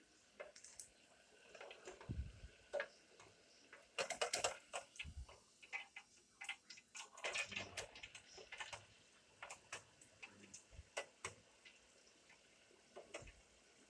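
Fries frying in hot oil in a small electric deep fryer: quiet, irregular crackling and sharp popping, busiest about four seconds in and again around seven to eight seconds, with a few dull thumps among the pops.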